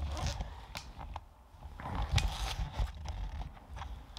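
Handling noise from a handheld camera being moved: clicks and rustles over low thumps on the microphone, in two clusters, at the start and again around two seconds in.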